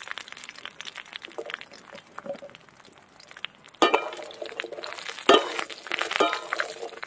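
Wooden spatula stirring dried kul (jujubes) in a metal karai: light rattling clicks of the hard fruit against the pan, then three sharp knocks roughly a second apart in the second half, each leaving the metal pan briefly ringing.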